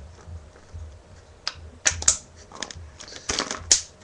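Irregular sharp plastic clicks and taps from a homemade PVC-pipe and plastic-bottle paintball gun being handled while it is loaded, the loudest cluster about three and a half seconds in.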